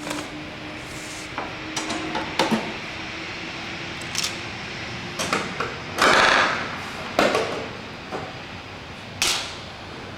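Scattered knocks and clatters of tools and parts being handled in a workshop, with one longer, louder noisy rush about six seconds in.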